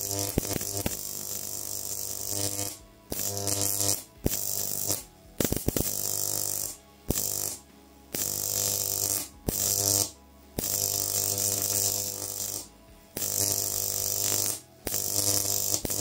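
High-voltage electric arc fed by two cascaded microwave oven transformers at close to 20 kV, buzzing with a mains hum and a high hiss. It switches on and off abruptly about ten times in runs of one to two seconds, with clicks at some restarts. The transformers are being pushed hard enough that the first one overheats.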